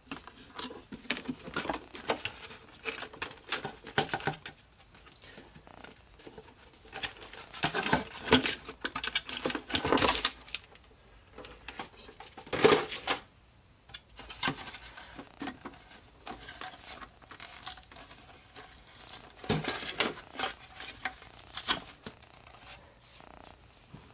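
Irregular clicks, knocks and rustling of plastic vacuum-cleaner housing parts being handled, with two louder knocks about ten and thirteen seconds in.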